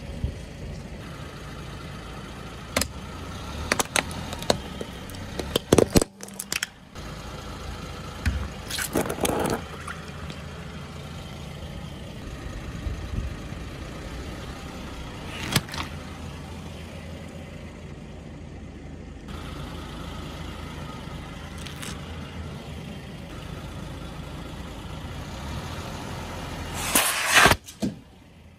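A car's engine running at low speed while its tyre rolls over and crushes objects on paving stones, with a series of short sharp cracks and pops; the loudest burst of crackling comes near the end.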